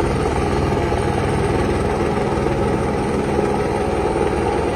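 Steady engine noise, an even mechanical drone at constant loudness with no breaks.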